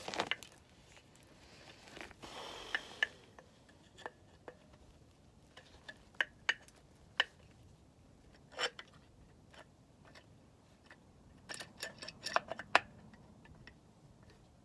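Scattered light metallic clicks and clinks of drum brake hardware (springs and small parts) being handled during reassembly, with a short rustle about two seconds in and a quick run of clicks near the end.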